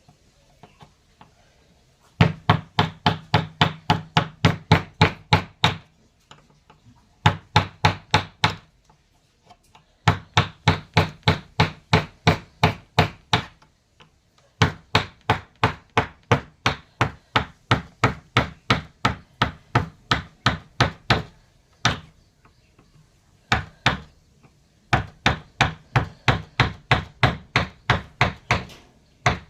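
Mallet tapping a carving chisel into wood with quick, even strikes, about five a second, in runs of a few seconds separated by short pauses.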